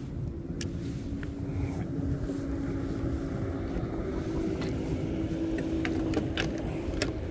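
A motorboat engine hums steadily, heard over low wind rumble on the microphone, with a few faint clicks.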